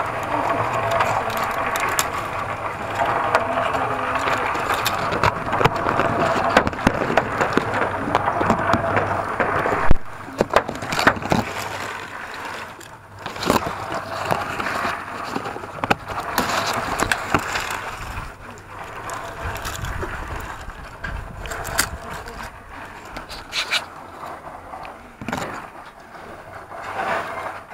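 Grapevine leaves and twigs rustling and crackling as bunches of grapes are picked by hand, with scattered clicks and scrapes of handling. A sharp knock about ten seconds in is the loudest sound.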